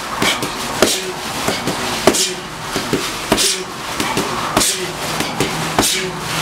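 Boxing gloves smacking into focus mitts in quick punch combinations, sharp hits coming singly and in fast pairs at irregular intervals.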